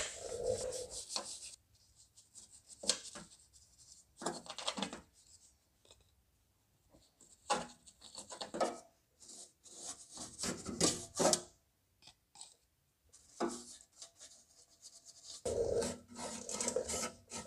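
A brush scrubbing on rusty sheet metal in short, irregular bursts of strokes with quiet pauses between, beginning with a sharp click.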